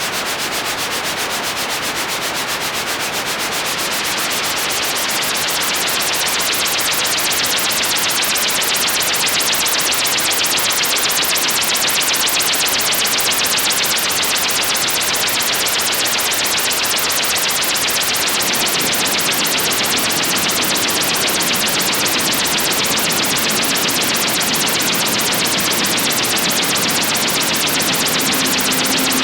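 Korg iMS-20 synthesizer app putting out filtered white noise with a fast, even pulsing, a noise patch being shaped toward a helicopter rotor sound. The hiss grows brighter and slightly louder over the first several seconds, then holds steady.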